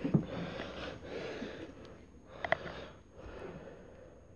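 A person breathing heavily close to the microphone, catching their breath after a long fit of laughter: a few breathy exhalations about a second apart, with a couple of small clicks.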